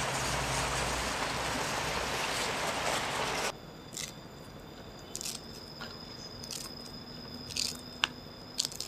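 A steady rushing hiss that cuts off abruptly about three and a half seconds in. After it, a much quieter stretch with a faint steady high tone and several small sharp snaps as the petals of a torch ginger flower are pulled off by hand.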